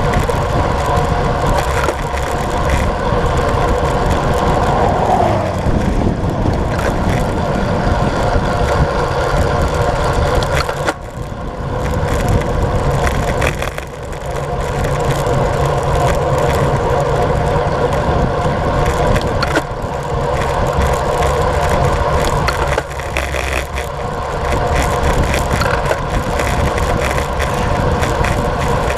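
Wind rushing over the microphone of a camera on a road bike at about 40 km/h, mixed with road tyre noise. It eases briefly twice near the middle as the pace drops on a short rise.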